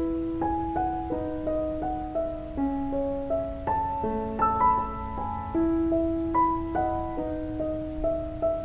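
Background piano music: a gentle melody of sustained notes played over chords, with no speech.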